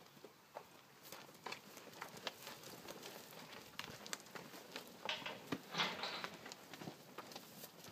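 Cattle milling in a pen, their hooves knocking and scuffing on dry dirt in many short, irregular clicks. A louder scuffle comes about five to six seconds in.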